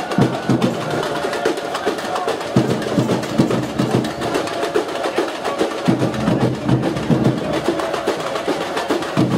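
Music with fast, steady drumming and percussion.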